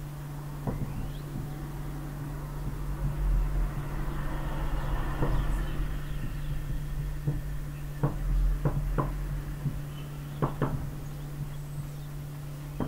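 Marker pen writing on a whiteboard: scratchy, squeaky strokes for a few seconds, then several short taps as letters and dots are put down, over a steady low electrical hum.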